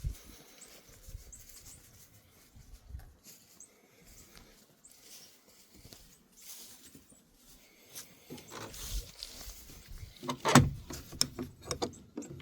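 Goats moving about their pen, with faint rustling and light hoof steps, then a quick cluster of sharp knocks and clicks about ten and a half seconds in.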